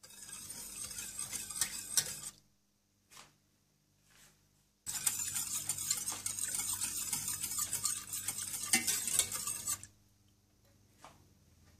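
Wire whisk stirring milk in a stainless steel saucepan, its wires scraping and clinking against the pan as coffee and sugar are whisked in. It comes in two spells: about two seconds, then a pause of a couple of seconds, then about five seconds more.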